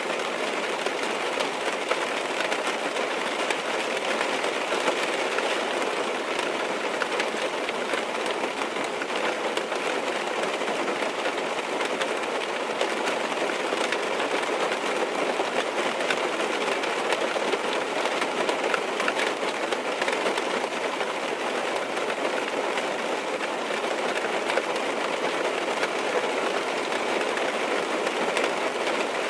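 Steady, dense rain pattering on a car's roof and windows, heard from inside the cabin, with a constant rush of many fine drop impacts.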